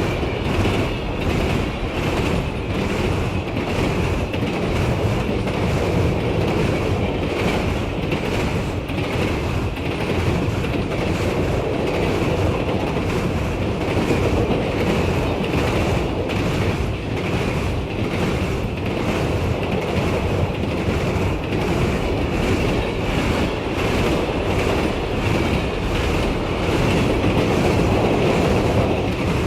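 Train running past at a steady level, its wheels clacking over the rail joints again and again.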